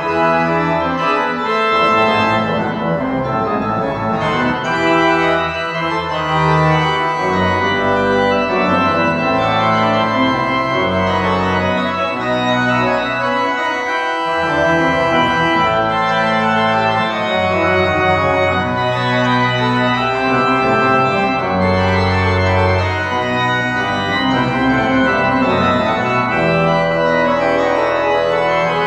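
Goll pipe organ playing contrapuntal music in G major, several voices of running notes over a bass line. The bass drops out for a moment about halfway through.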